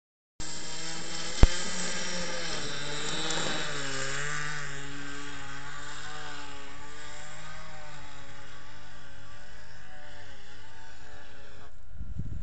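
Radio-controlled model airplane's engine running steadily in flight, its pitch dropping about four seconds in and then wavering slightly. A single sharp click about a second in.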